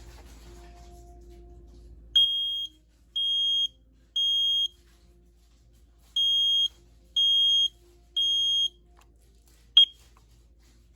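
Smoke alarm sounding its test alarm in the standard temporal-three pattern: two rounds of three high-pitched half-second beeps, with a short pause between the rounds, followed by a single short chirp near the end.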